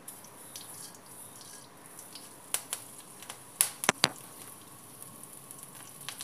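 Mustard seeds crackling and sizzling in hot oil in a kadai while curry leaves and dried red chillies go in, for a tadka. A few sharp clicks stand out about two and a half to four seconds in.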